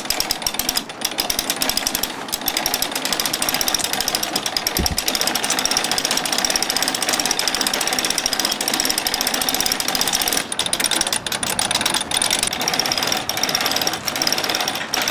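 Sailboat winch ratcheting in a steady, rapid rattle as it winds in the halyard hoisting a person up the mast.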